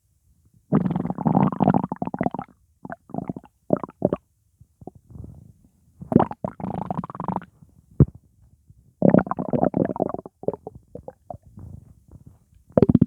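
Upset, gassy stomach rumbling and gurgling in irregular bouts: three longer rumbles of a second or more, with short gurgles between and one sharp click a little past halfway. The uploader blames the gas on pizza.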